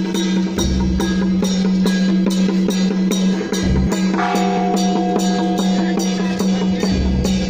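Taiwanese temple ritual music: drums and other percussion beat a fast, even rhythm of about three to four strikes a second over a steady held low tone. A higher held note comes in about four seconds in and lasts a couple of seconds.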